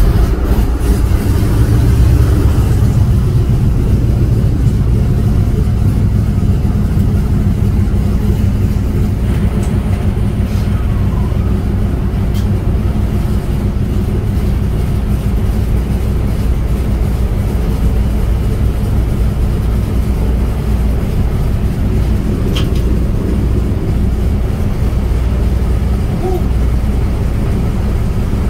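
Ford Trimotor's radial engines running, heard from inside the cabin as a loud, steady, low drone.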